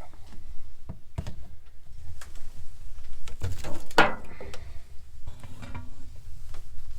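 Objects being handled in a small cabin: a series of knocks and clicks, with a louder brief scrape about four seconds in.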